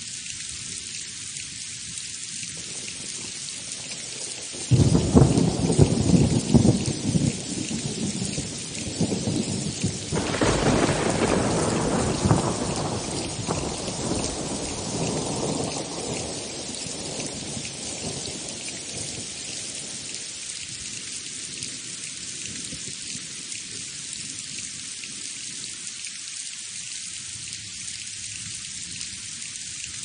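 Steady rain falling, with a thunderclap about five seconds in that rolls on in a second swell and dies away over the next fifteen seconds or so.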